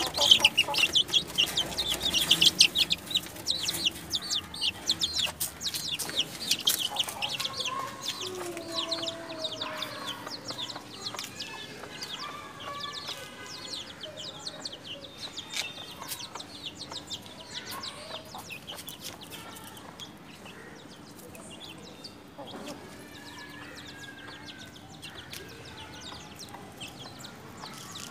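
A flock of birds chirping and calling in many quick, high notes. The calls are densest and loudest for the first several seconds, then thin out to scattered, quieter calls.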